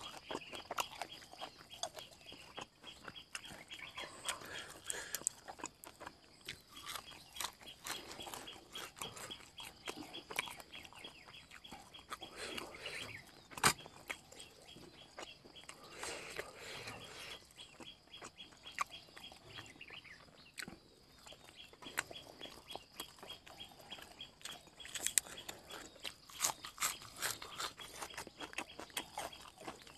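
A man chewing and eating close to the microphone: wet mouth smacks and chewing clicks that come unevenly throughout, with one sharp click a little under halfway through.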